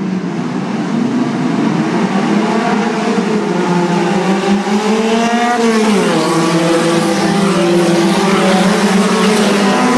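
A pack of touring race cars accelerating at a race start, many engines revving at once and growing steadily louder as the field approaches. Several engine notes climb in pitch about halfway through, then drop back.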